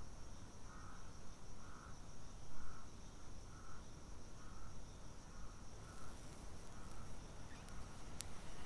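Night-time insect ambience: a steady high trill with a softer chirp repeating a little under once a second, over a low rumble. A sharp click near the end.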